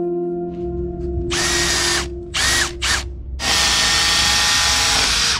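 Cordless drill run in bursts: three short spins, each rising in pitch as the motor spins up, then one long steady run that stops suddenly near the end.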